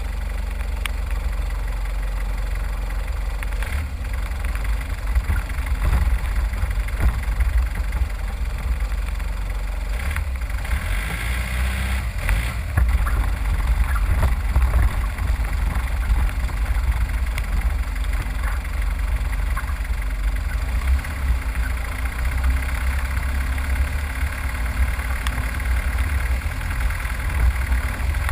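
Vehicle engine running steadily at low revs, a continuous deep rumble.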